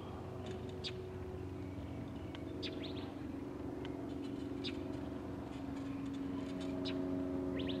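Birds chirping in short high calls, about one a second, over a steady low mechanical hum.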